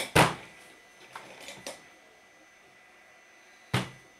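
Knocks and clicks of things being handled on a workbench: a sharp knock just after the start, a few faint clicks about a second and a half in, and another sharp knock near the end.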